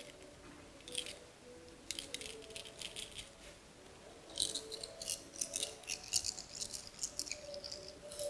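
Cowrie shells (búzios) being shaken and cast for a Candomblé divination game, a clatter of small shell clicks. It comes in bursts and is busiest from about four and a half to seven and a half seconds in.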